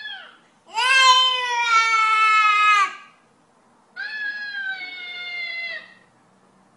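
A baby gives a long crying call, about two seconds, and then a talking-cat app on an iPad (Talking Tom) plays it back in a higher-pitched cartoon voice. A short call is also heard right at the start.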